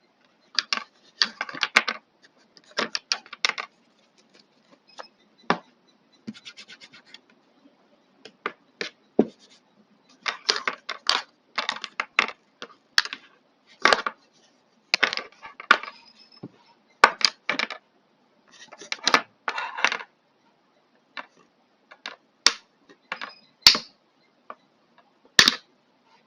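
Plastic parts of a Philips Multigroom series 3000 trimmer being handled and pressed together: irregular clicks, snaps and scraping in short clusters, with a quick run of small ticks about six seconds in.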